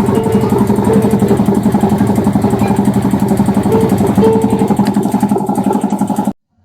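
Miniature amusement-park train running, a steady mechanical drone with fast, even pulsing; it cuts off suddenly near the end.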